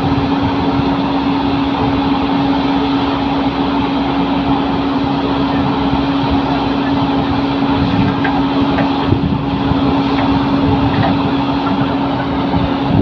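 Heavy diesel machinery engine running steadily under load, with a strong, even hum.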